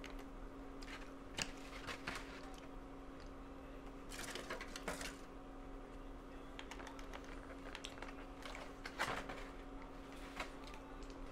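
Scattered small clicks and rustles of a person handling styrofoam takeout containers and a game controller while eating, over a steady faint hum. Longer rustles come about four and nine seconds in.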